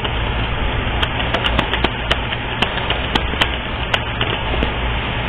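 Irregular sharp clicks and light clatter, several a second, over a steady hiss and low hum.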